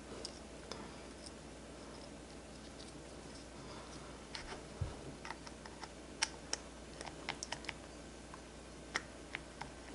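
Small sharp clicks of a baitcasting reel spool and its spool pin being worked in a hand spool pin press tool, as the pin is pushed back to sit evenly on both sides. The clicks are sparse at first and come in a run of a dozen or so through the second half, with a low knock about five seconds in.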